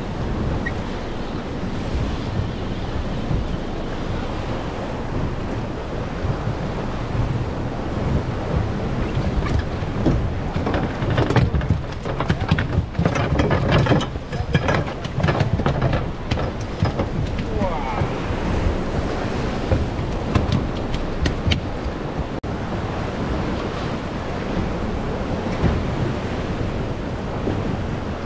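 Sea surf churning and breaking against a rocky shore beside a small boat, with wind buffeting the microphone. A run of sharp clicks and knocks comes in the middle.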